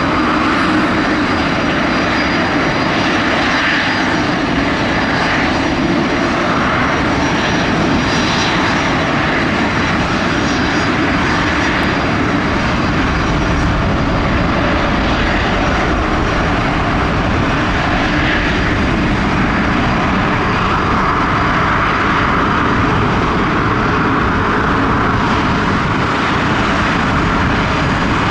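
Boeing 787 Dreamliner's GE GEnx turbofan engines at takeoff thrust during its takeoff roll: loud, steady jet noise.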